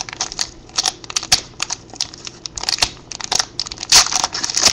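Foil trading-card pack wrapper crinkling in irregular sharp crackles as it is handled and opened, with one louder crackle near the end.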